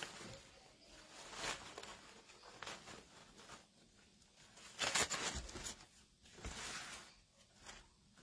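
Rustling and crinkling of starched cotton fabric strips and wired ribbon as a bow is handled and fluffed by hand, in short irregular bursts, loudest about five seconds in.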